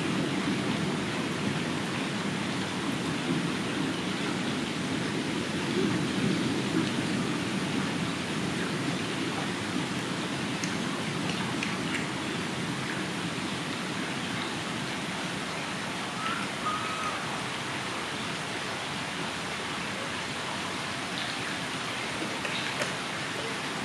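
Steady outdoor background noise: an even, rushing hiss with no distinct events, easing slightly over the stretch.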